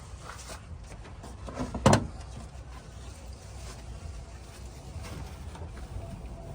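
Light handling noises with one sharp knock about two seconds in, as parts and the coolant jug are handled at the engine bay.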